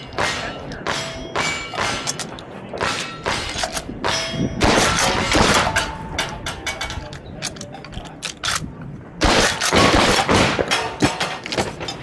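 Gunfire at steel targets, with the plates ringing with a clang after the hits. The shots and hits come in two dense runs, about five seconds in and again around nine to eleven seconds.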